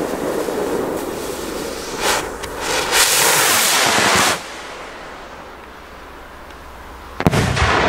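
Fireworks going off: a steady crackling hiss, a louder rush of noise about three seconds in that stops suddenly, then a sharp bang near the end.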